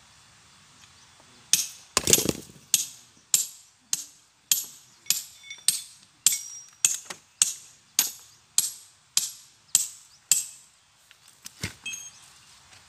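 Hammer driving a steel chisel into a boulder to split it by hand: about sixteen evenly spaced metal-on-metal blows, under two a second, each ringing briefly. The blows stop about ten seconds in, followed by a duller knock and a couple of light clinks near the end.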